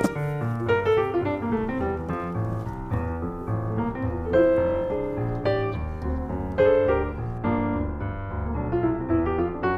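Background piano music: a steady run of quick struck notes.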